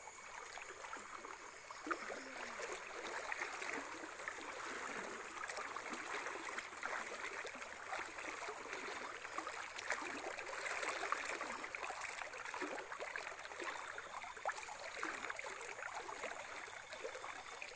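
Legs wading through a shallow muddy creek, the water sloshing and swishing around them in a steady run of small splashes.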